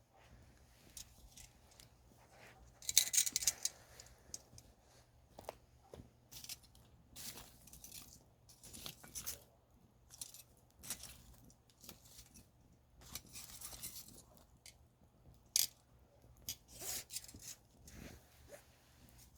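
Wood campfire crackling, with irregular snaps and pops and a louder cluster of crackles about three seconds in.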